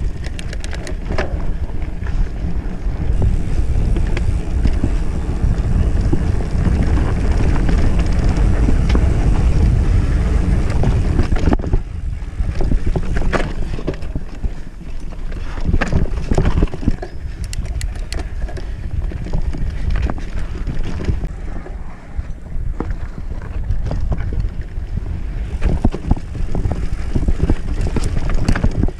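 Mountain bike rolling along a rocky dirt singletrack, with wind buffeting the microphone and the bike rattling and knocking over stones now and then. The wind noise is heaviest in the first half and eases after about twelve seconds.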